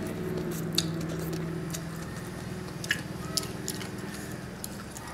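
Wet chewing and slurping of noodles and papaya salad, with a few sharp clicks of wooden chopsticks against the metal tray, the loudest about a second in and near three seconds in. A steady low hum runs underneath.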